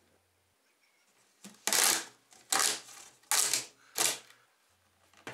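Hard plastic parts being handled: four loud scraping, rattling bursts, each under half a second and spaced a little under a second apart, as a corrugated plastic duct hose and a plastic outlet adapter are worked at the front of a portable air conditioner.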